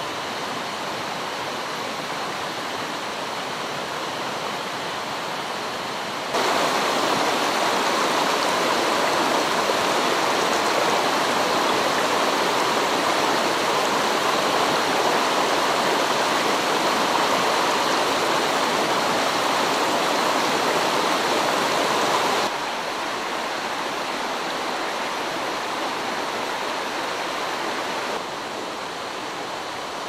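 A shallow, rocky mountain stream rushing steadily over stones. It gets louder about six seconds in, drops back a little past twenty seconds, and quietens slightly again near the end.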